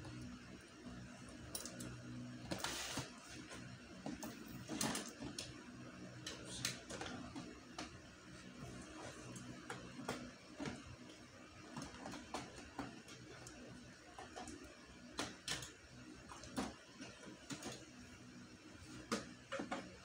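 Scissors snipping and cardboard and plastic packaging rustling and clicking as a toy blaster is freed from its box, a scattered run of short sharp clicks and brief rustles. A faint low hum fades out about three seconds in.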